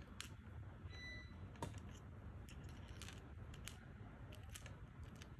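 Faint, irregular small clicks and ticks of a smartphone's pop-up camera module and flex cable being handled and pressed into place in the phone's internal frame, over a low steady hum. A brief faint high tone sounds about a second in.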